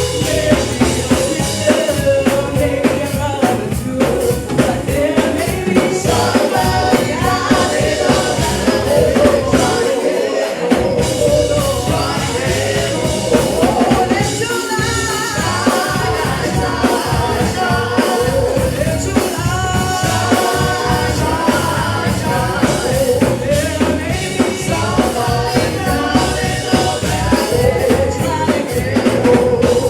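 Live gospel praise-and-worship music: singers over a full band with drums. The bass drops out briefly about ten seconds in.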